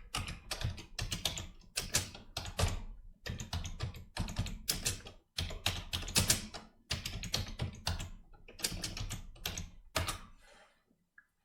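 Typing on a computer keyboard: a quick, irregular run of keystrokes that stops about a second before the end.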